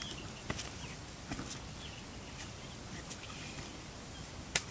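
Scattered crunching footsteps and rustling on dry leaves and stones, with a few sharp clicks, the loudest near the end.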